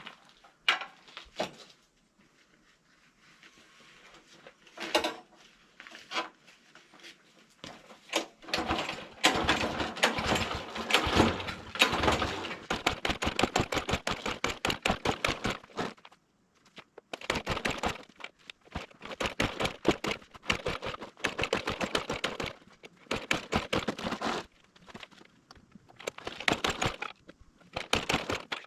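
Walk-behind lawnmower's small engine being started: three runs of rapid, uneven firing, each several seconds long and each stopping abruptly, after a quieter stretch of faint clicks.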